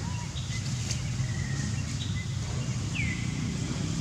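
Outdoor forest ambience: a steady low rumble with a few faint, high bird chirps, and one short falling whistle about three seconds in.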